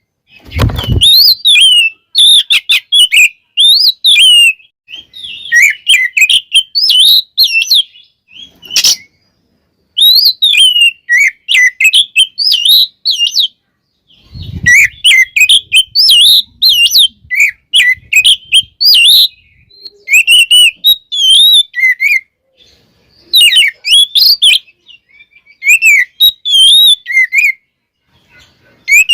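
Oriental magpie-robin (kacer) singing loudly in rapid bursts of varied whistles and chirps, with brief pauses between phrases. A low thump comes near the start and another about halfway through.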